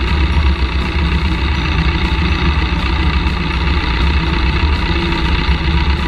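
Piper L-4 Cub's piston engine and propeller droning steadily in flight, heard from inside the small cabin.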